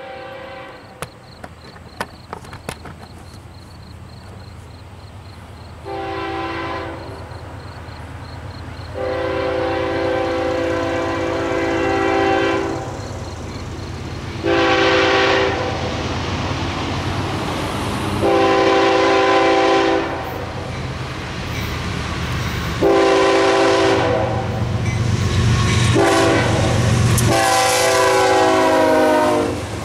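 CSX diesel freight locomotive's air horn blowing a series of long and short blasts for a grade crossing as the train approaches, over a low engine rumble that grows louder. The last blast drops in pitch as the lead locomotives pass. A crossing bell rings faintly and steadily in the first part.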